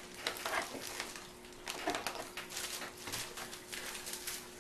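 Plastic packaging crinkling and rustling in irregular bursts as a bagged power cord and a plastic-wrapped part are handled and lifted out of a cardboard box, with one sharp knock near the end.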